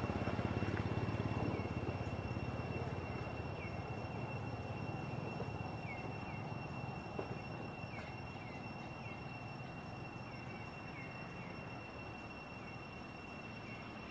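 Outdoor ambience: a low engine drone, loudest at first and fading away, under a steady high-pitched tone and small repeated chirps.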